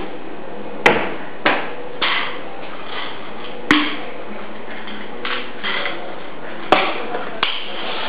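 Hard household objects knocking and clattering as kitchen items are handled, about six sharp knocks and clicks at uneven intervals over a steady hiss.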